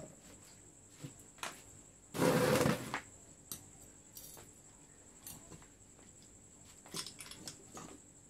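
Metal car-alternator parts and tools being handled on a tile floor: scattered clicks and knocks, with one loud harsh scraping noise lasting almost a second about two seconds in.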